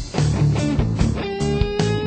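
Rock music: electric guitar over a steady drum beat, with a held guitar note coming in about a second in.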